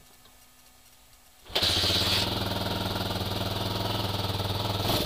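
Hawk 250 dual-sport motorcycle's single-cylinder four-stroke engine catching on a kick about a second and a half in, then running steadily for about three and a half seconds before cutting out abruptly at the end. A cold start in below-freezing weather, catching on the fifth kick.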